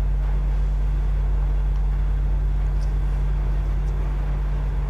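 Steady low hum under a faint even hiss, with no distinct sounds on top.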